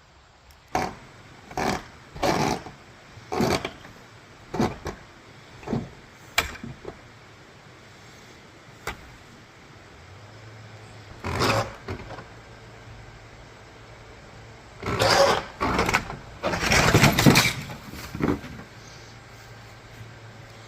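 Footsteps, about one a second, then a low engine hum that comes in about ten seconds in and holds steady, with a run of louder rustling and scuffing sounds near the end.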